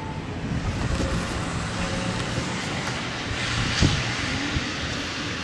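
Steady rumble of city street traffic, with one sharp knock about two-thirds of the way through.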